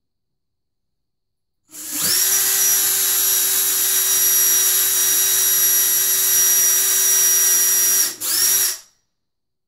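Milwaukee cordless drill/driver driving a cabinet screw through the cabinet's back panel into a wall stud. The motor runs at a steady, constant-pitch whine for about six seconds, breaks off briefly, then gives a short final burst.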